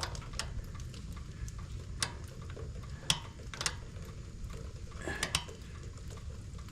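Scattered light clicks and knocks as the generator's controls and fittings are handled, about six in all, over a low steady rumble; the engine is not running.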